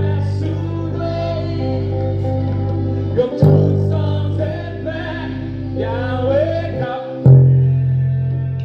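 Electric bass holding long low notes under a gospel song with singing. A fresh bass note is struck about three and a half seconds in, and another near seven seconds, where the bass moves from G to F.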